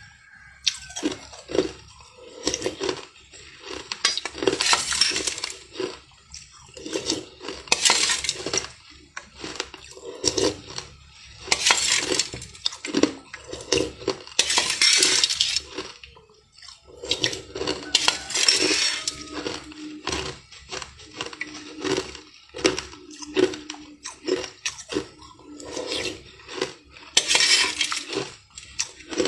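Close-up eating sounds of ice chunks from a stainless steel pot: a metal spoon clinking and scraping against the pot, with loud bursts of crunching and slurping every few seconds.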